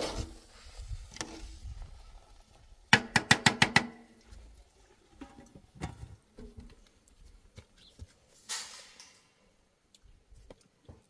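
A quick run of about seven sharp knocks, some of them ringing, about three seconds in, followed by faint scattered clicks and light handling noise.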